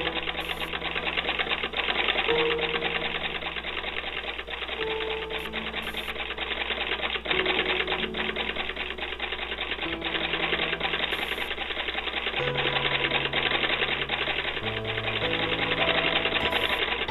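An 1870 Florence Fancy Leg treadle sewing machine stitching a tuck, running steadily with a fast, even clatter of stitches. A music bed of slow, held notes plays under it.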